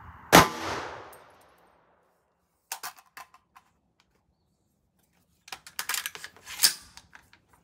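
A single shot from a .300 Blackout AR-style rifle firing a supersonic 150-grain Remington Accu-Tip load: one sharp crack right at the start, echoing away over about a second. Then metallic clicks and clanks as the rifle is handled and unloaded, the magazine taken out, with the loudest clank near the end.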